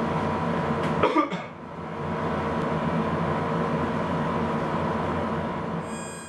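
A person coughs once, briefly, about a second in, over a steady hiss and hum.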